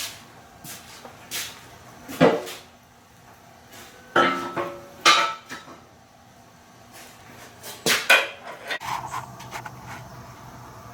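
Steel parts being handled and set down: several separate metal clanks and knocks, some ringing briefly. A steady low hum starts near the end.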